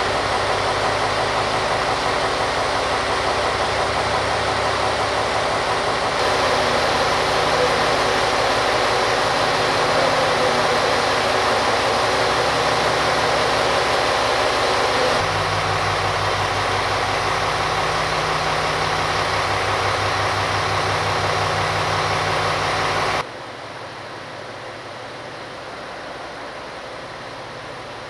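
KiHa 101 diesel railcar idling, a steady engine drone that shifts abruptly in level a couple of times. Near the end it drops sharply to a much quieter background hum.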